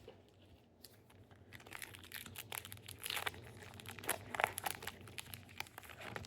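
Plastic wrapper of a Topps Heritage baseball card pack being torn open and crinkled, a run of crackling starting about a second and a half in.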